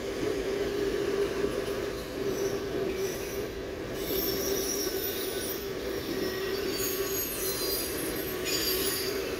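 CSX autorack freight cars rolling past with a steady rumble. From about four seconds in, the wheels squeal in high, shifting tones that come and go.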